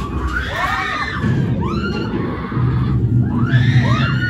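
Riders screaming on a drop ride, several overlapping shrieks rising and falling in pitch, over a low rumble that grows louder about halfway through.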